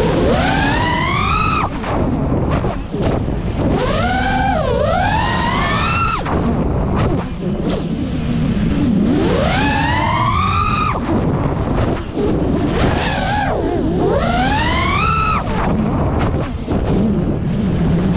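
Motors and propellers of a 5-inch FPV quadcopter whining in repeated sweeps, the pitch climbing as the throttle is punched and dropping as it is cut, about every four to five seconds, over a steady rush of wind.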